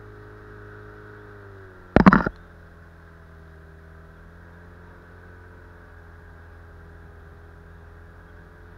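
Outboard motor on an inflatable boat running steadily under way while it is being run in. About two seconds in, its pitch eases down a little and there is one loud, short knock, after which the motor runs on evenly.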